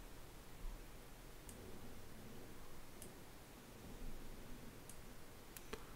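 Five faint clicks of a computer mouse, spread out, with two close together near the end, over faint room hiss.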